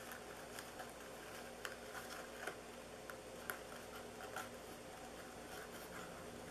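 Faint rustling and soft ticks of satin ribbon being pulled and tied into a bow on a paper gift box, over a steady low room hum.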